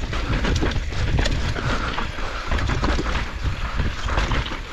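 Mountain bike rolling fast down a rough, rocky dirt trail: tyres on loose dirt and stones and the bike rattling over bumps, with many sharp knocks over a low rumble of wind noise on the microphone.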